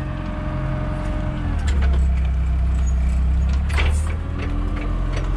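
A vehicle engine running steadily nearby, its low drone shifting and growing stronger about a second and a half in, with a sharp click about four seconds in.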